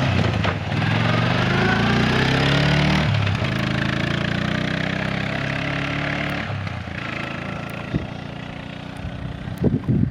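1995 Arctic Cat 454's engine accelerating away under throttle, its pitch climbing, dropping about three seconds in, and climbing again. It eases off around six and a half seconds in and gets quieter as it moves off, with a few wind thumps on the microphone near the end.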